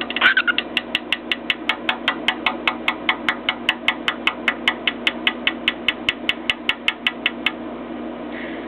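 Cockatiel rapidly tapping its beak against a mirror: a fast, even run of sharp taps, about five a second, that stops near the end.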